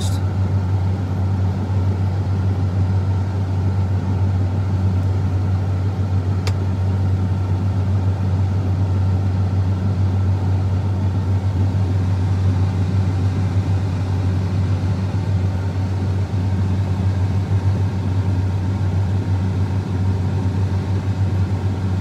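John Deere X9 combine harvester running steadily while cutting wheat, heard from inside its cab as an even low drone.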